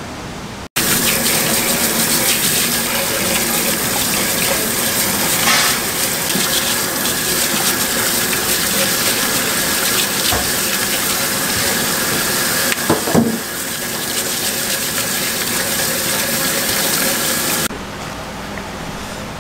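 Kitchen tap running hard into a stainless steel sink while something is rinsed under the stream. It starts abruptly about a second in and cuts off near the end, with a few brief knocks partway through.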